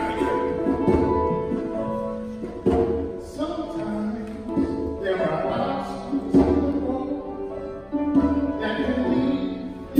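Live gospel music near the start of a choir song: instrumental accompaniment of sustained chords, punctuated by a few sharp percussive hits.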